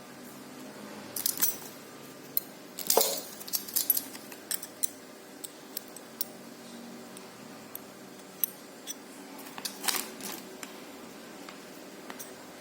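Small steel parts of a drill-to-grinder converter attachment clinking and knocking as they are handled, in irregular clusters of sharp clicks, the loudest about a second in, around three seconds in and near ten seconds in.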